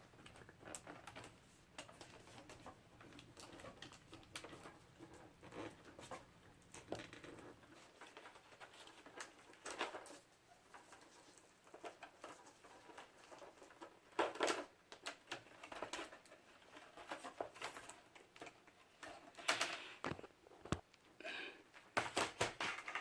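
Scattered light clicks, taps and scraping as the broken LCD panel of a Toshiba Satellite laptop is handled and lifted out of the lid, with a few louder clicks in the second half.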